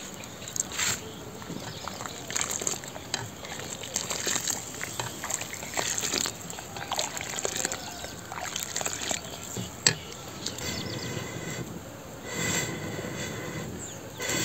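Water running and splashing, with many small clicks and knocks.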